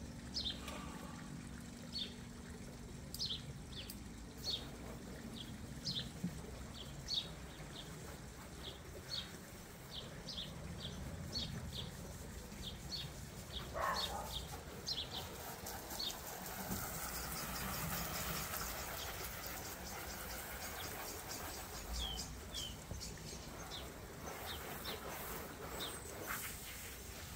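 A garden hose spray nozzle spraying water onto the tub and paving, starting about halfway in and running on as a steady hiss. Over it, a bird gives short high chirps again and again, about one or two a second.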